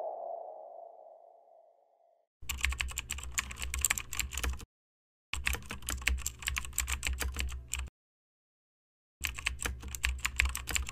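A ringing tone fades away over about two seconds, then a computer-keyboard typing sound effect comes in three runs of rapid key clicks with short pauses between them, in step with text being typed out on screen.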